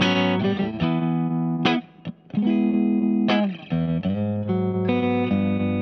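Yamaha Revstar RSS02T electric guitar played clean through a Space Sounds Cosmic Tremolo pedal: strummed chords that ring and change about every second, with a short break about two seconds in.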